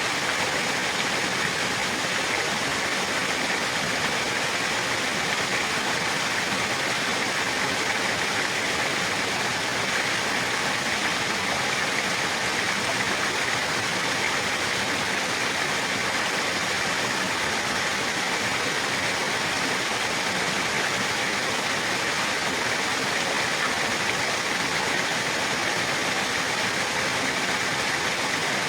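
Running water with a steady, even rush and no separate splashes or drips.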